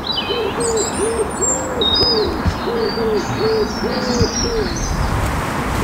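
A pigeon cooing in a steady run of low, arched notes, about three a second, while small songbirds chirp and twitter above it.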